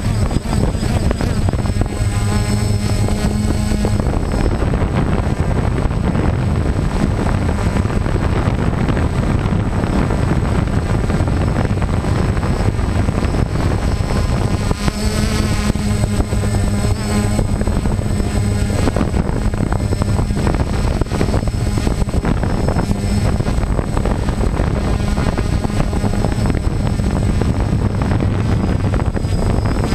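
DJI Phantom quadcopter's electric motors and propellers running with a loud, steady buzz. The pitch wavers and swells now and then as the drone manoeuvres.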